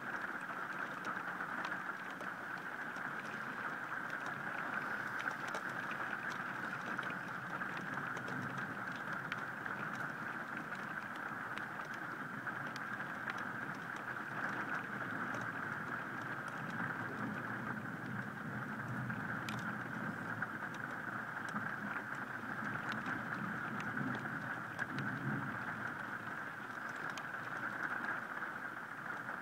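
Steady heavy rain falling, an even hiss with scattered sharp ticks of individual drops.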